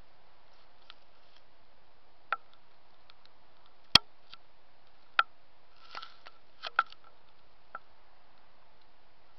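Irregular sharp clicks and taps from a handheld camera being handled and zoomed, over a steady faint hiss, with one very sharp click about four seconds in.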